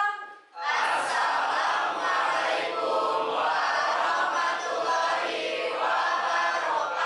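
A class of students chanting a greeting in unison, the drawn-out Islamic salutation 'Assalamualaikum warahmatullahi wabarakatuh', starting about half a second in.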